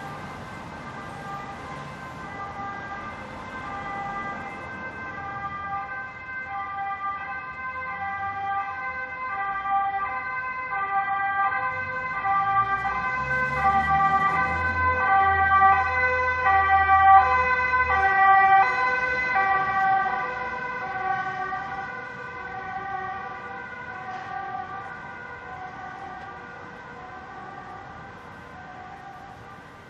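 Ambulance two-tone siren alternating steadily between a high and a low note as the vehicle passes. It grows louder to a peak about two-thirds of the way through, with the vehicle's low rumble heard as it goes by, then fades away.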